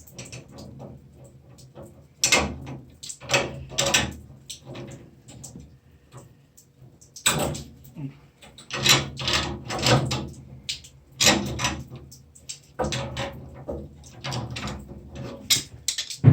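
Irregular metal knocks, clanks and scrapes of a wrench working on an old washing machine shut-off valve to unscrew it from its supply pipe. There are several louder clanks, the sharpest right at the end.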